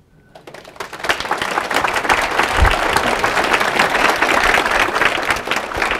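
Audience applauding, building up over the first second and then going on steadily, with a single dull thump about two and a half seconds in.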